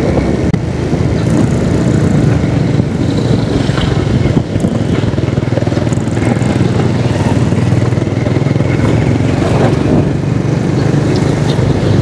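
Steady engine and road noise from a vehicle moving along a city street.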